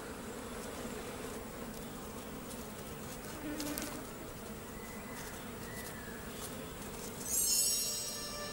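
Insects buzzing steadily with a low hum. About seven seconds in, music comes in with bright, chiming tones.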